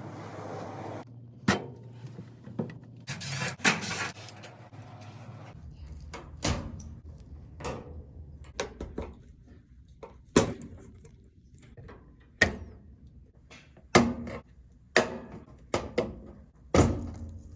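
A series of separate sharp knocks and clicks, a dozen or so spread out, as objects are handled and set down, with a short rustling scrape about three seconds in.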